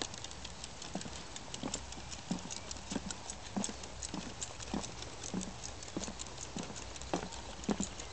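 Footsteps on wooden boardwalk planks: steady hollow knocks a little under twice a second, with rapid light clicks over them.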